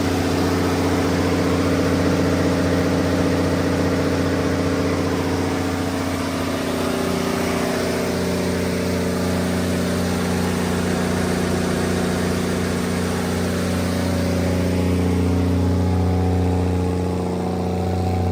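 Cummins LTA10-G1 turbocharged diesel engine of a 230 kW generator set running steadily at constant speed. Its tone shifts slightly about seven seconds in.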